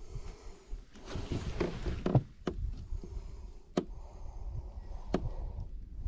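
Handling noise and a few sharp knocks on a plastic kayak as the fish is held and repositioned, over a low wind rumble on the microphone.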